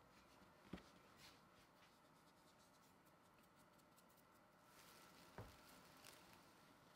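Near silence, with a few faint taps and soft rustling as hands handle dough pieces on a floured wooden board. The clearest taps come about a second in and about five and a half seconds in.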